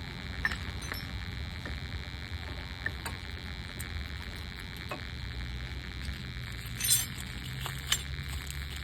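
Light metallic clinks and clicks of tools and brake parts being handled during a brake pad change, scattered over a low steady hum, with a louder rattle about seven seconds in.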